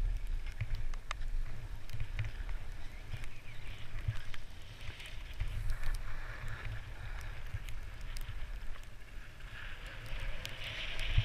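Skis hissing and scraping over packed snow during a downhill run, the scrape swelling and easing with the turns, over a steady low rumble of wind on the camera's microphone.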